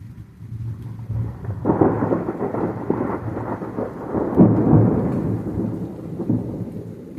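Thunder: a low rumble that breaks into a loud, crackling peal about two seconds in, swells to its loudest a little past the middle, then rolls away near the end.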